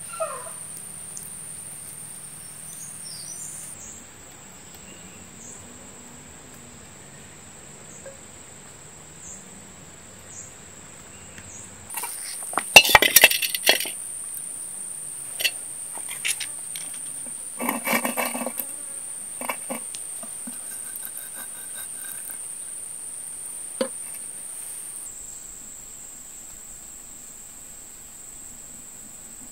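Steady high-pitched chorus of jungle insects. About halfway through comes a loud burst of scraping and clattering as a metal frying pan is set on a clay stove, followed by a few lighter knocks and scrapes.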